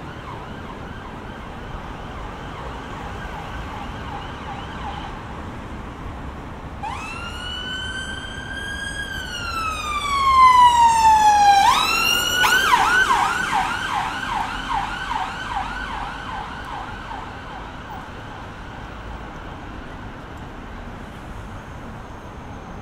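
Emergency vehicle siren passing through street traffic: a slow wail rises and then falls, then switches to a fast, repeated yelp that fades away. It is loudest near the middle.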